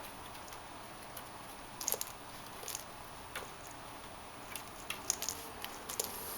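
Scattered light taps and soft scratches from small kittens' paws and bodies moving about, a dozen or so short clicks, more crowded near the end.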